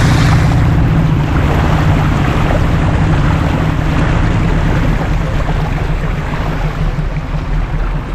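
A vehicle running on a rough road, with a steady low rumble and heavy wind noise on the microphone.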